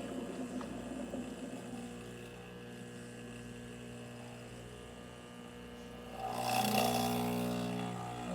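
Breville Dual Boiler espresso machine's vibratory pump humming steadily while pulling a test shot after a service. A louder rushing hiss comes in about six seconds in and lasts about two seconds.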